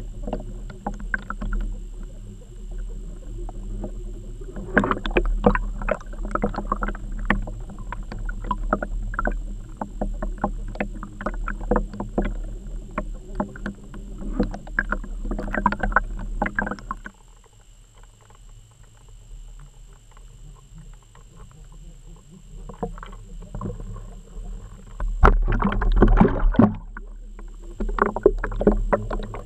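Muffled underwater noise through a camera's waterproof housing: dense crackling and knocking over a steady low hum and a faint high whine. It drops quieter for several seconds past the middle, then grows loud again near the end.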